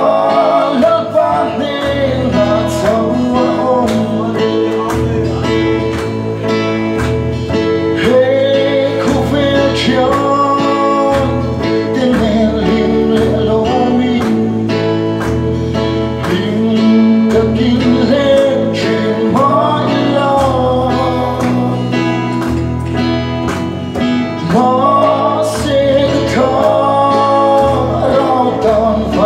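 A man singing into a microphone, accompanied by strummed acoustic guitar and keyboard, with steady held bass notes under the voice.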